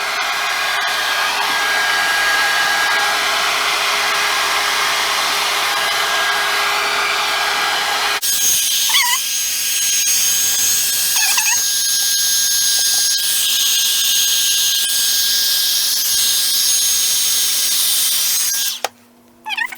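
John Frieda hot air brush blowing steadily as it is run through hair, a loud rushing of air with a steady motor tone. Its sound changes abruptly about eight seconds in and stops suddenly just before the end.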